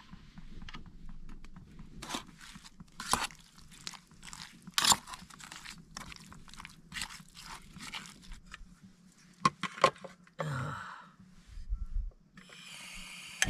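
Irregular crunches and sharp clicks, scattered at uneven intervals, with a steady hiss starting near the end.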